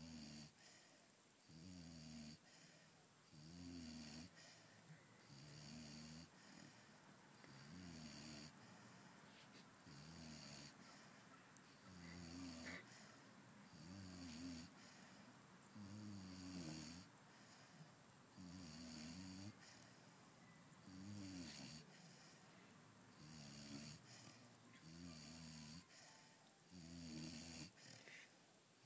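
Pit bull puppy snoring faintly in its sleep, one snore about every two seconds, each with a low wavering drone and a breathy hiss.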